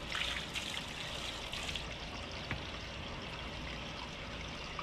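Water running from a garden hose and splashing onto a dog's coat and the wet concrete, a steady trickling pour; the brightest hiss of the spray drops away about two seconds in.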